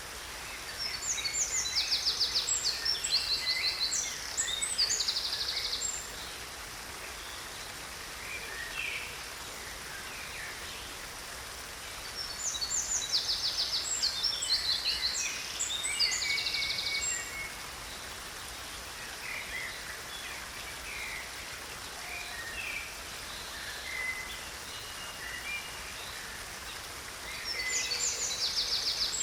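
A songbird singing: a long phrase of rapid trills and quick high notes, repeated about every 13 seconds, with softer calls in between. A steady faint hiss runs underneath.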